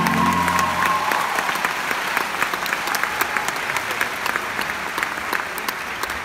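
Audience applause, many hands clapping. The last held note of the dance music dies away about a second in.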